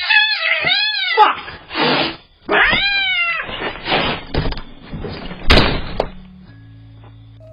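Cats yowling and screeching in long wavering cries, with rough noisy bursts between them. A loud sharp knock comes about five and a half seconds in, and then only a low steady hum remains.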